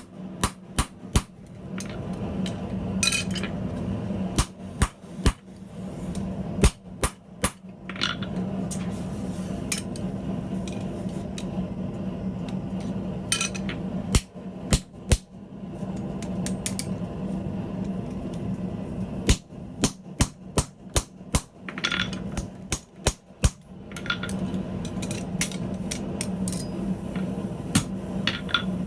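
Hand hammer striking hot steel on an anvil in groups of quick blows with pauses between, a few blows leaving a short metallic ring. A steady low hum runs underneath.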